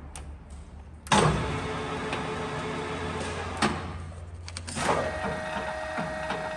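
LeBlond Makino Regal Servo Shift engine lathe's geared headstock starting up with a sudden clunk about a second in, then running with a steady gear whine and a sharp click partway through. Near the middle it eases off and picks up again with a higher steady whine as the spindle speed is changed at the Servo Shift speed dial.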